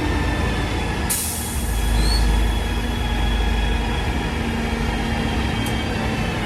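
Retarder of a Fast Gear FC6A145R bus gearbox whistling: a steady high whine over the low rumble of the bus. A short sharp hiss of air comes about a second in.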